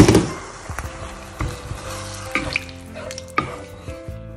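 Water splashing into a hot pan of vegetables and oats, then the wooden spatula stirring and scraping, knocking on the pan a few times over a light sizzle.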